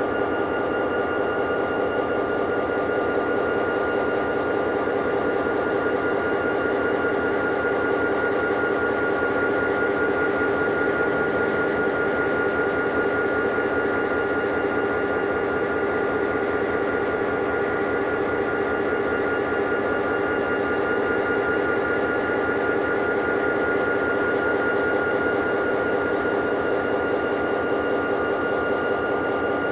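Reading and Northern EMD diesel locomotive running as it moves slowly past at close range: an even, unchanging engine sound with a steady high whine over it.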